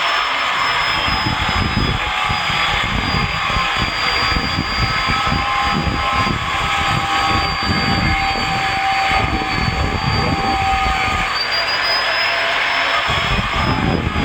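Electric hand-held angle grinder running at high speed, a steady high whine over a rough, uneven grinding noise. The whine sags a little about ten seconds in and then climbs back.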